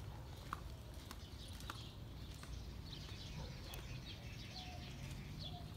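Small birds chirping in quick, high, scattered calls, with a few short lower whistled notes near the end, over a faint steady low rumble.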